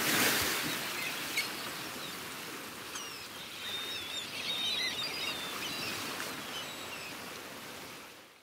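Water splash rushing at the start, then a steady hiss of water with birds chirping and calling over it from about three to six seconds in, fading out near the end.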